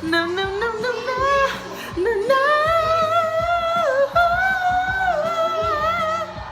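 Intro music: a sung vocal holding long notes with vibrato over a pop beat.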